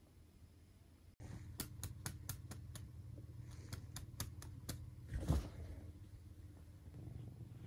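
Fingers tapping and scratching on trouser fabric in a quick run of sharp clicks, about four a second, to call a kitten over; a louder soft rustle about five seconds in.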